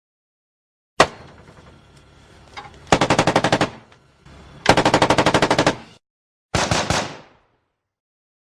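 M4 rifle gunfire: a single shot about a second in, then two long bursts of fully automatic fire at roughly a dozen rounds a second, and a short burst of a few rounds near the end.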